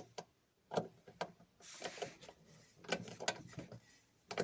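Faint, scattered clicks and knocks of a hand tool and metal parts being handled on a washing machine motor.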